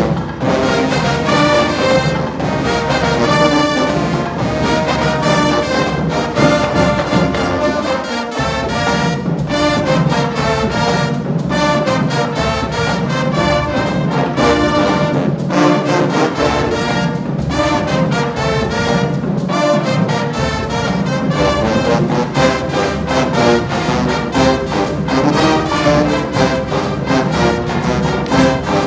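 Marching band playing a loud brass-led tune, with trombones and trumpets over a steady beat.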